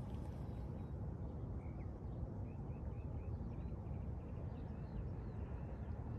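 Steady low rumble of wind on the microphone, with faint short bird chirps scattered through the middle.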